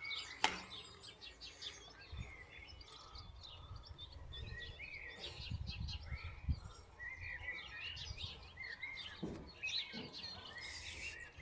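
Small birds chirping and twittering over a low rumble of outdoor air noise, with one sharp knock about half a second in.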